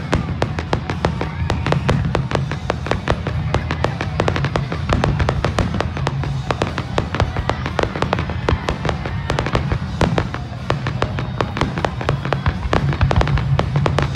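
Fireworks display: aerial shells and ground-fired fireworks popping and crackling in a dense, continuous barrage of sharp cracks, many per second, over a low rumble.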